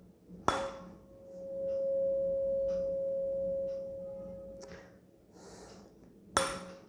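A 512 Hz tuning fork struck on a rubber pad, then ringing a steady pure tone that swells as it is held over the mouth of a water-filled resonance-column tube and fades out about five seconds in; near the end it is struck again and the tone starts afresh. The air column is set a little short of its resonant length, so the tone is only slightly reinforced.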